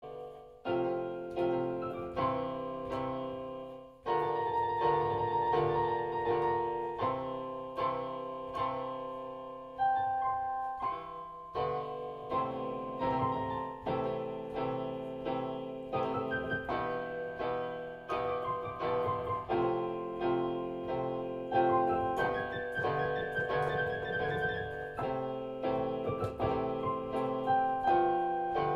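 Solo piano music: notes and chords struck one after another, each ringing and fading, with a brief lull about four seconds in before fuller chords.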